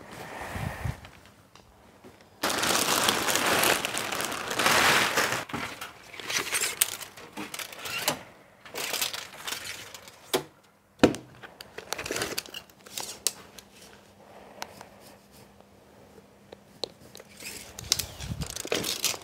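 Rustling and crinkling as stone-wool (Rockwool) acoustic insulation slabs and their plastic wrapping are handled. The noise is loudest for a few seconds near the start, with quieter rustles and a few sharp clicks later, one of them about 11 seconds in.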